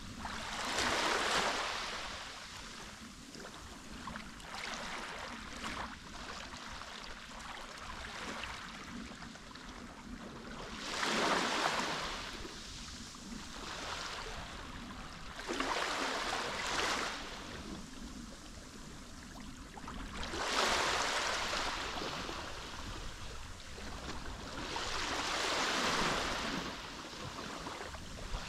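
Mediterranean sea waves washing onto the shore, swelling and falling away in uneven surges every few seconds, with a steady wash of water between them.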